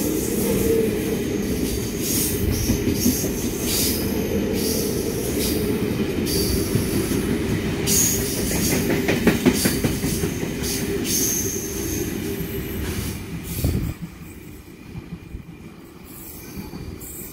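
Double-deck electric passenger train passing through the station without stopping: steady rumble of wheels on rail, with rhythmic clatter over rail joints and short high-pitched wheel squeals. The noise drops away about 14 seconds in as the last car clears.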